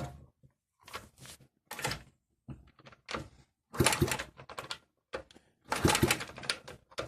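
Tools and metal engine parts knocking and scraping, a series of irregular clunks with short gaps, the loudest about four and six seconds in.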